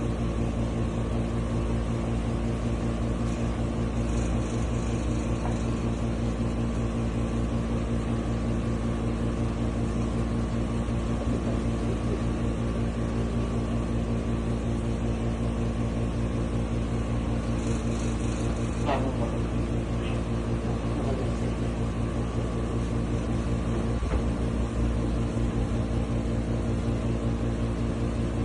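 Steady low machine hum at an even level, with one brief falling squeak about two-thirds of the way through.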